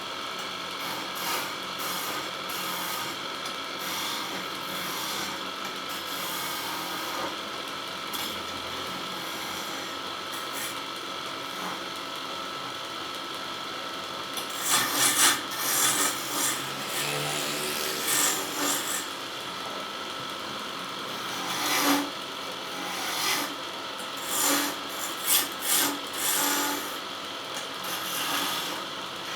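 Wood lathe running with a steady hum while a turning tool scrapes and cuts the spinning wood. The cutting comes in short harsh bursts, more often and louder in the second half.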